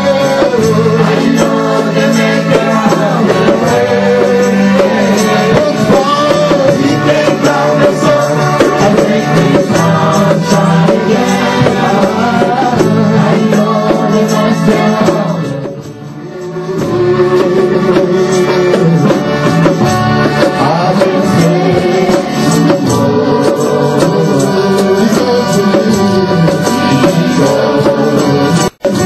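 Live church worship music: singing over a band, dipping briefly about halfway through.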